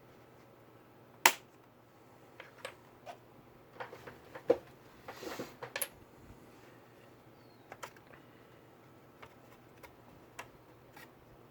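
Small hard clicks and taps of laptop parts and tools being handled, with one sharp click about a second in, a cluster of clicks and a brief scrape in the middle, and a few isolated clicks near the end.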